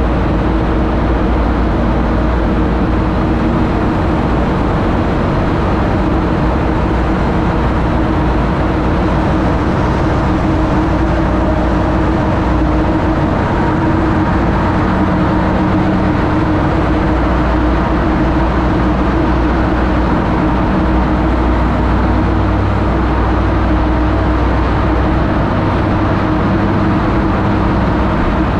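TVS Apache 200 single-cylinder motorcycle engine running steadily at cruising speed, with road and wind noise, echoing inside a road tunnel. A heavy truck's low rumble rises alongside through the middle stretch as the bike passes it.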